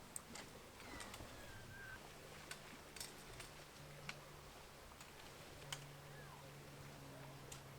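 Faint, quiet background with sharp, irregular clicks and ticks, about ten in all, spread unevenly.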